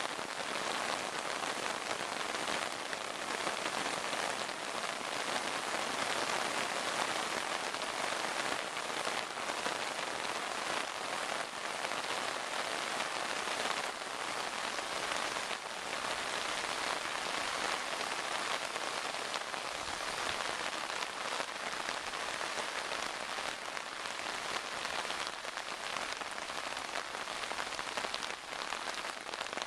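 Torrential rain pouring onto a river and its bank: a dense, steady hiss with a fine crackling patter of drops throughout.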